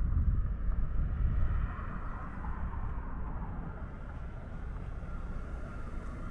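Low rumble of road traffic, louder for the first second and a half, then steadier and quieter.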